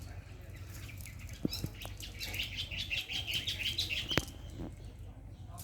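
A bird calling in a quick run of repeated chirps lasting about two seconds, with a few sharp clicks around it.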